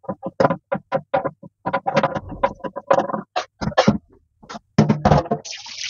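A wok being scrubbed in the sink by hand, a quick run of rubbing strokes at about four a second. Near the end the tap is turned on and water starts running.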